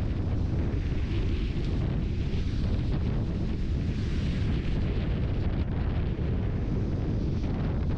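Steady low rumble of wind and road noise from a moving car, buffeting the microphone, with a lighter hiss above it.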